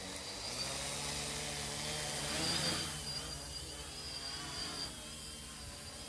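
Erle-Copter quadcopter's brushless motors and propellers whining as they spin up, with the pitch wavering as the motor speeds shift. The sound swells to its loudest about two and a half seconds in, then settles.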